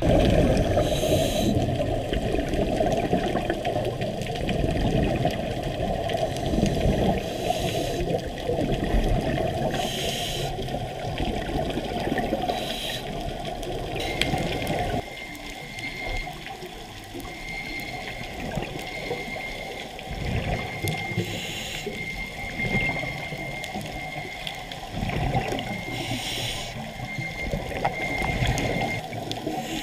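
Underwater sound through a diving camera's housing: a muffled rush of water, louder in the first half, with short bubbling bursts every few seconds from scuba divers breathing out. A thin high whine comes and goes in the second half.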